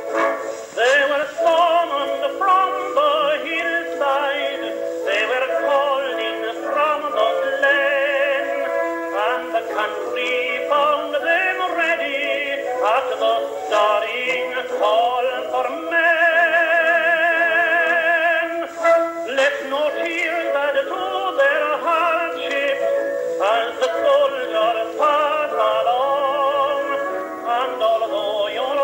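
A song playing: a singing voice carrying the melody over instrumental accompaniment, with long held notes that waver in a vibrato about halfway through.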